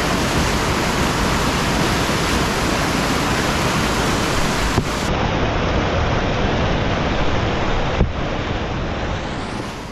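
Whitewater rapid rushing loudly and steadily around a kayak. There is a short knock about eight seconds in, and the sound fades out near the end.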